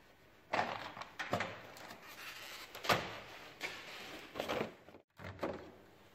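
A series of knocks and clunks from a car's tailgate and tail lamp being handled, about six in all, the loudest about three seconds in.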